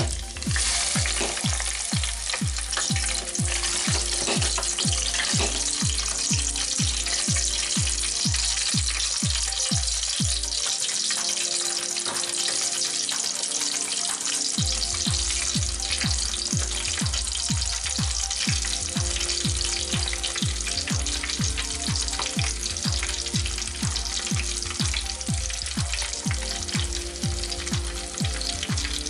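French fries frying in the hot oil of a deep fryer: a dense, steady sizzling hiss of bubbling oil that starts suddenly as the basket goes in. Background music with a steady beat of about two a second plays underneath.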